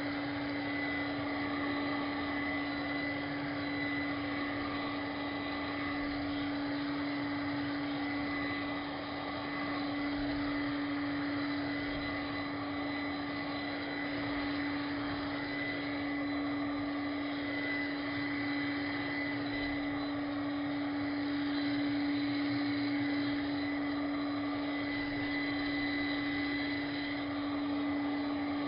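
Cordless handheld vacuum cleaner's small motor running steadily, a constant hum and whine with no change in speed.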